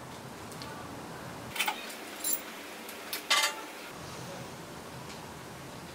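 A few short, light metallic clinks from tools and parts being handled at the timing chain tensioner of a Honda S2000 engine: three in the first four seconds, the last a brief rattle.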